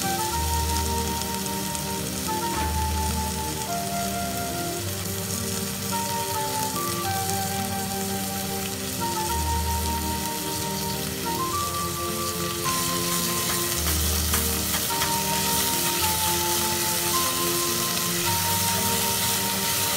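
Sliced onions sizzling in oil in a stainless steel pot, the sizzle growing louder a little past halfway, under background music.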